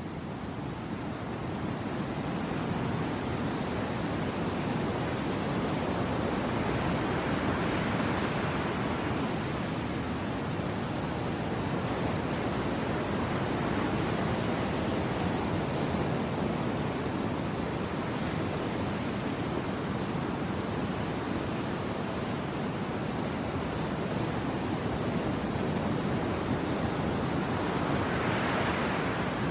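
Sea surf: a steady wash of waves, swelling as a wave breaks about eight seconds in and again near the end.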